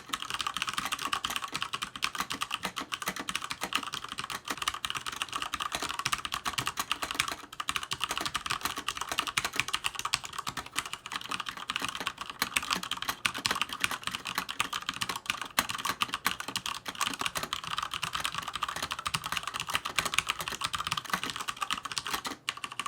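Continuous fast typing on a Cougar Attack X3 RGB mechanical keyboard with Cherry MX Red linear switches on an aluminium backplate: a dense clatter of keystrokes, with a brief pause near the end.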